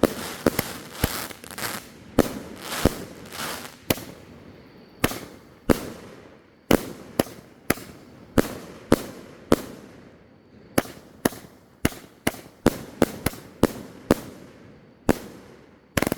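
A 500-gram, 25-shot consumer fireworks cake firing shot after shot. It gives sharp bangs about one or two a second, some with a short rush of noise trailing after them.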